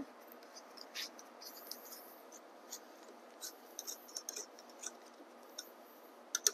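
Faint scattered clicks and scrapes of a 6 mm hex key working the axle cap of a bicycle crank, with a sharper click near the end.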